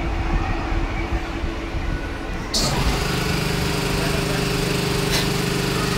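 Moving passenger train heard from its open door: running rumble at first, then about two and a half seconds in a steady machine hum with a high hiss sets in abruptly and holds.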